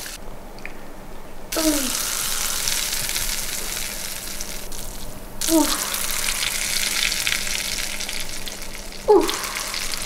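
Baking soda and vinegar foaming over ice, a steady crackling fizz. It comes in stretches, each beginning with a short falling swoop, at about one and a half, five and a half and nine seconds in.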